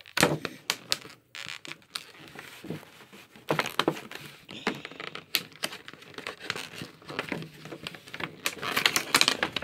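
Clear plastic blister packaging crinkling as a hand handles it, in irregular bursts of clicks and crinkles, busiest about three and a half seconds in and again near the end.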